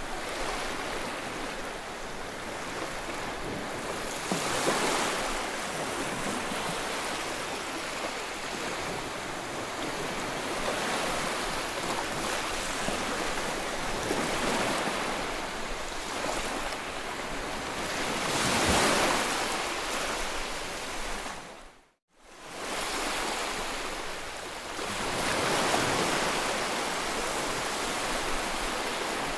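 Small sea waves washing onto a rocky, pebbly shore. The wash swells and ebbs every several seconds and cuts out for a moment about three-quarters of the way through.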